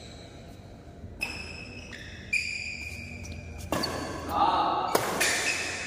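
Badminton rackets striking shuttlecocks: about four sharp hits roughly a second apart, each ringing briefly in the echoing hall.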